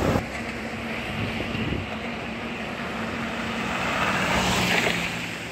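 Road traffic: a steady engine hum under even road noise, with a vehicle passing and swelling louder about four to five seconds in.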